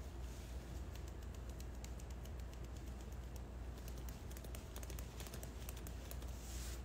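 Quiet, irregular light clicks like typing, growing denser in the second half, over a steady low hum; a brief hiss just before the end.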